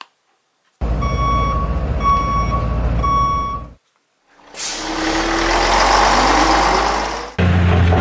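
Heavy truck sound effects: an engine running with three reversing-alarm beeps about a second apart, then after a short gap an engine revving up with a rising whine, and a steady engine idle starting near the end.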